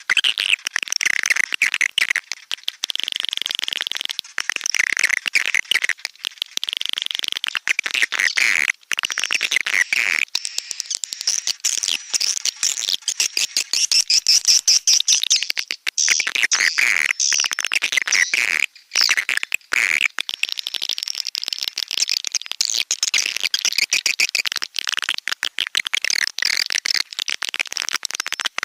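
Recorded edible-nest swiftlet calls, a dense, unbroken chatter of rapid clicking twitters and chirps, with a couple of held buzzy trills early on. It is a swiftlet lure track of the kind played from swiftlet houses to draw the birds in to nest.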